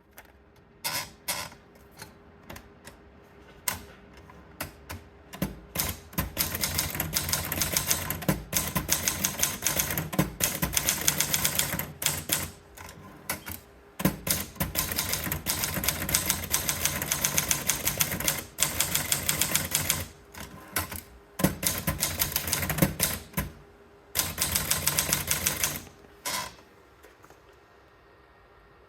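Triumph Gabriele 25 typewriter being typed on: fast runs of key strikes lasting several seconds, separated by short pauses. There are a few scattered strokes at first, and the typing stops a few seconds before the end.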